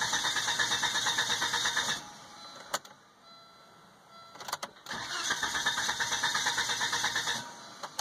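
Volvo S70's starter cranking its five-cylinder engine in two attempts, about three seconds each, with a fast even churning rhythm. The engine never catches: a crank-no-start on the hot restart, which the owner puts down to a bad ECU.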